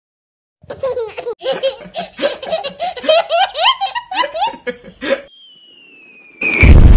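A baby belly-laughing hard in quick repeated peals for about four seconds. A thin whistle follows, slowly falling in pitch. Near the end a loud explosion starts.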